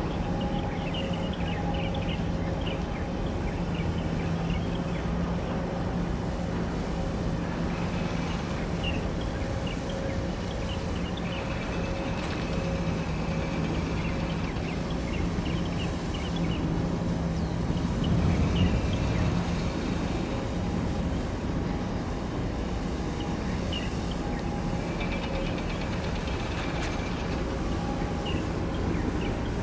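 Steady low machinery drone with a constant hum from a passing container ship, swelling briefly a little past halfway.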